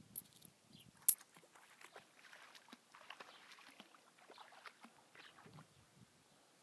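A dog wading about in shallow pond water, with faint, irregular sloshing and splashing. One sharp click about a second in is the loudest sound.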